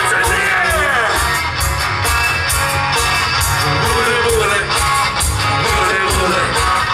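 Live rock-and-roll band playing an instrumental passage: a lead line bending up and down over bass and a steady drum beat, with guitar prominent.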